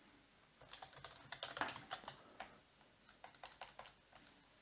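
Faint typing on a computer keyboard: two short runs of key clicks with a pause between.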